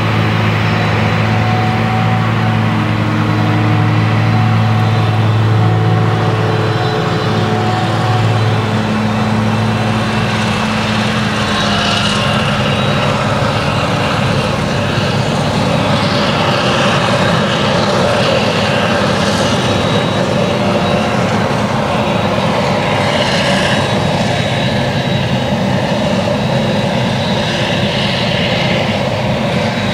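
Claas Jaguar 970 forage harvester running under load, chopping whole-crop triticale with a Direct Disc header and blowing it into a trailer, a steady, heavy machine noise. About ten seconds in, a low, even engine hum gives way to a harsher rush of chopping and blowing.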